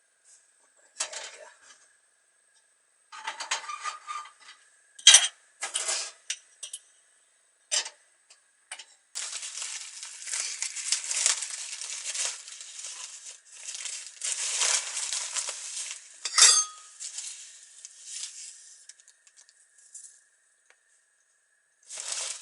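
Crockery and cutlery being handled in a small kitchen: a few separate clinks and knocks, then about ten seconds of busy, continuous clattering.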